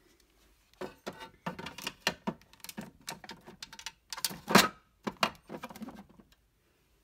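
Plastic makeup compacts and containers clattering and clacking as they are handled and set into a storage drawer, a quick string of knocks and short scrapes with the loudest knock about four and a half seconds in.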